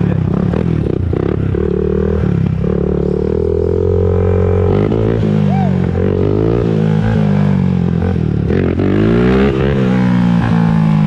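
Honda TRX400EX ATV's single-cylinder four-stroke engine running on a ride, its pitch rising and falling several times as the throttle is opened and closed.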